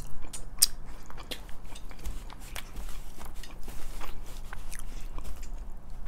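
Close-miked chewing and wet mouth clicks of people eating sausage spaghetti, as short irregular smacks.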